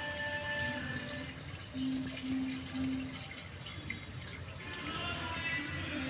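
Background music with held notes, over faint dripping and trickling of liquid, likely gasoline running off the fuel pump just lifted out of the tank.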